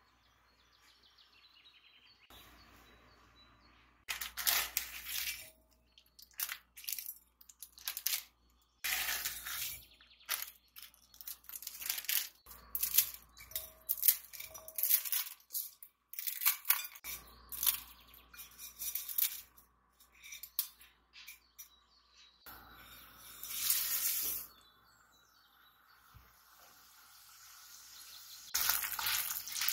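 Kitchen handling sounds: irregular clicks, clatters and rustles of utensils and cookware being worked, with a short stretch of steady hiss about three-quarters of the way through and again near the end.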